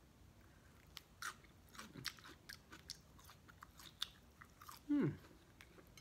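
Close-up eating sounds: wet chewing, lip smacks and finger-sucking clicks from a person eating a chili cheese coney with their fingers. About five seconds in comes a short hum of the voice that falls in pitch, the loudest sound.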